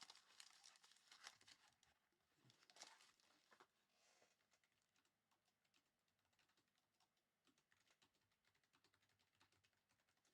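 Near silence, with faint crinkling and light clicks in the first few seconds from trading-card packaging being handled.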